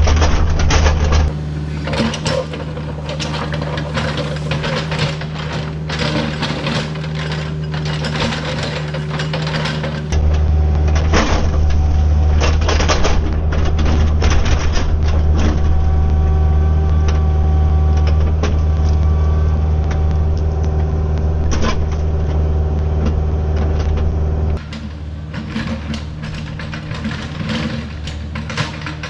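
Kubota mini excavator's diesel engine running steadily under load, with rocks and dirt knocking and scraping against the bucket. The engine's loudness and tone jump sharply three times, as the footage switches between cameras.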